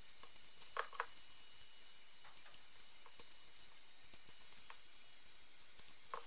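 Faint clicks and small metallic taps as steel balls are pressed into the greased cage of a CV joint, over a steady background hiss.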